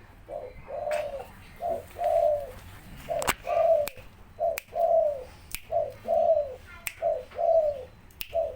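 A dove cooing over and over, each phrase a short note followed by a longer arched coo, about one phrase a second. A few sharp clicks fall between the coos.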